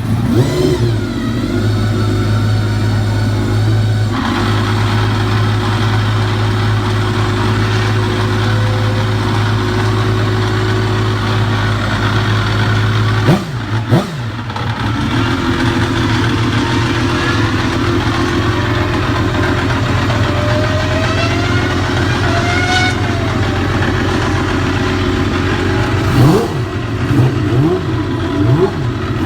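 Ferrari racing car engine running at a steady held speed, with a short rev about halfway and a run of quick throttle blips near the end.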